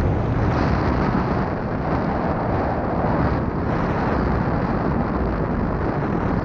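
Wind buffeting the microphone of a moving bike: a loud, steady noise, heaviest in the low range.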